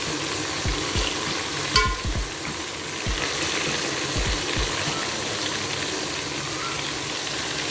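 Whole small eggplants and green chillies frying in hot oil in a pot, a steady sizzle, with a spatula stirring them. A few dull thumps and a sharp click about two seconds in come from handling at the pot.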